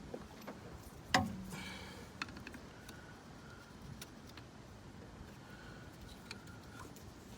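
Metal hand tools clinking while working on the engine bay: one sharp metallic clink with a short ring about a second in, then scattered light ticks.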